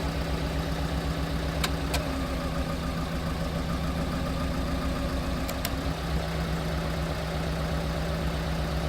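Four-cylinder petrol engine of a Piaggio Porter (Daihatsu Hijet) mini truck idling roughly, with an uneven pulse: a misfire that a newly replaced igniter has not cured, which the owner puts down to a wiring problem. A few faint clicks sound over it.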